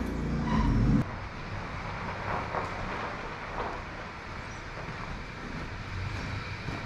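A low, steady engine running, which cuts off abruptly about a second in, followed by steady outdoor background noise.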